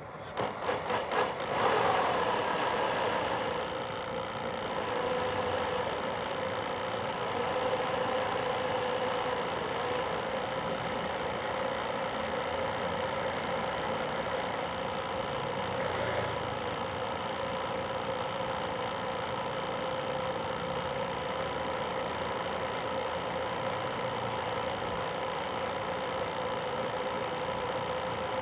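DC 775 electric motor of a radio-controlled model boat driving its four-blade stainless propeller, heard from on board. It runs in a few short pulses for about the first two seconds, then settles into a steady whine.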